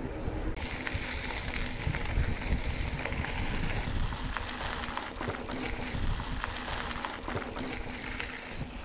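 Riding a mountain bike, with wind rumbling on the microphone and a steady hiss of tyres rolling from about half a second in. Small scattered clicks and rattles come from the bike.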